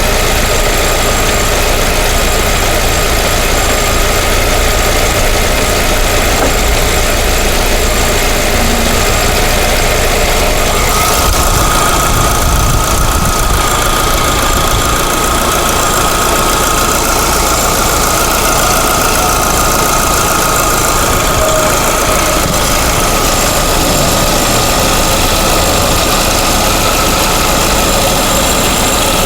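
Lada Vesta's 1.6 petrol engine idling steadily. About eleven seconds in, a thin high whine in it grows more distinct.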